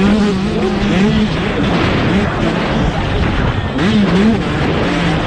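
125 cc motocross bikes racing, their two-stroke engines revving up and down again and again as the riders work the throttle.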